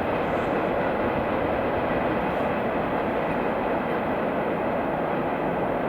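Freight train rolling past: a steady, unbroken rumble and rattle of wagon wheels on the rails.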